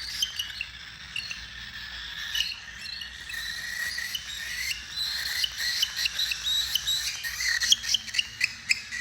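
Several cockatiels chirping, many short, high chirps overlapping, becoming busier and sharper in the second half.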